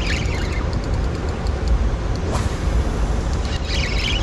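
Steady low rumble of water and machinery below a hydroelectric dam, with a single sharp click about two seconds in and faint high chirping near the end.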